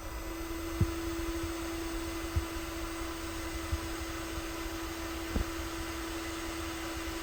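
JBC hot air station's blower running steadily while the handpiece heats up: a steady hum over the hiss of air from the nozzle, with a few faint ticks.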